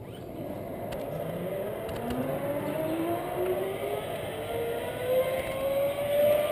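Zipline trolley pulleys running along a steel cable, a whine that climbs steadily in pitch and grows louder as the rider picks up speed.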